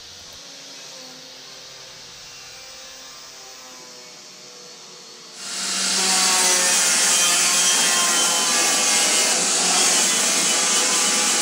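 Angle grinder with a wire cup brush scrubbing plasma-cut dross off the back of a steel sign. It is quiet at first, then about five seconds in a loud, steady scrubbing of wire on steel starts.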